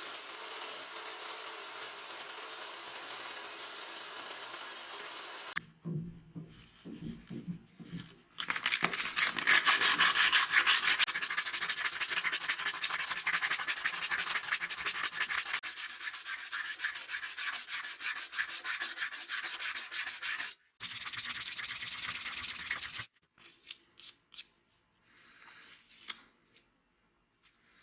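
Rapid rubbing and sanding strokes on a hatchet being restored, heard in short clips with abrupt cuts between them. The opening clip is a steady hiss with a thin high whine, and the sanding strokes are loudest in the middle.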